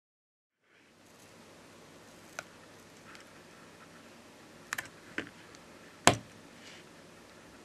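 A handful of small, sharp clicks and taps as tweezers and fingers pry the volume-button flex cable off a Samsung Galaxy A32's middle frame, the loudest a little after halfway, over faint hiss.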